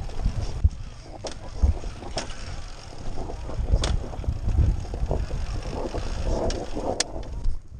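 Beta Xtrainer 300 single-cylinder two-stroke dirt bike ridden slowly over rock at low revs, with several sharp clicks and knocks from the bike crossing the stones and wind on the microphone.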